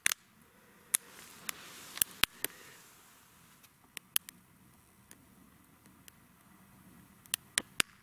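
Small twig fire burning in a folding titanium Bushbox stove, crackling with sharp, irregular pops, some in quick little clusters. The kindling is a bit damp.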